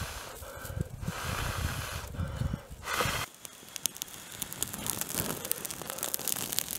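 Dry grass tinder bundle, lit from smouldering cigarette-filter cotton, catching fire and crackling with many small snaps that grow denser in the second half. For the first three seconds, gusts of air rumble on the microphone, ending in a short loud puff.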